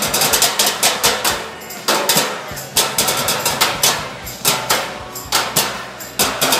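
Trash-can drumming: drumsticks beating a fast, steady rhythm of sharp hits on galvanized metal trash cans, with quick runs of rapid strokes in places.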